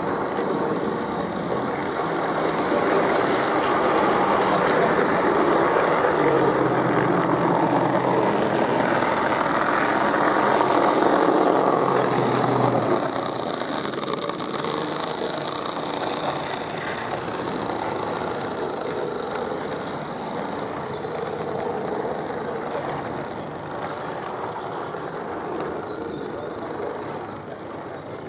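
Two large-scale model Class 52 'Western' diesel locomotives running past at the head of a train of coaches. The sound builds to its loudest about halfway through, as the locomotives pass, then eases as the coaches roll by.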